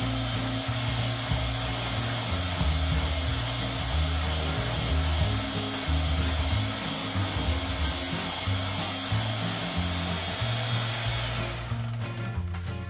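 Electric hand mixer running steadily, its beaters whipping butter into buttercream; the motor cuts off about a second before the end. Background music with a stepping bass line plays underneath.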